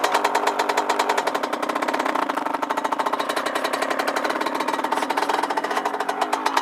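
Dirt bike engine idling steadily with a rapid, even beat.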